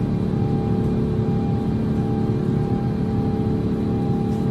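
Airbus A350's Rolls-Royce Trent XWB jet engine running steadily in flight, heard inside the cabin: a continuous low rumble and rush with a few steady humming tones.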